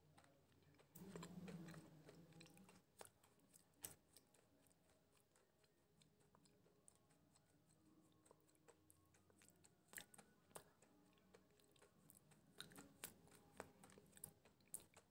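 Faint close-up chewing of food, with scattered sharp crunches and mouth clicks. It is louder for a second or so near the start.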